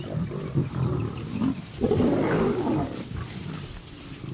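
Lions growling and snarling in a squabble over food at a kill. The louder, harsher snarl comes about two seconds in, then dies back to low growls.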